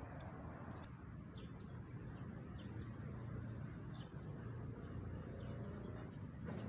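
A small bird chirping outdoors, a short high call repeated about once a second, over a steady low rumble.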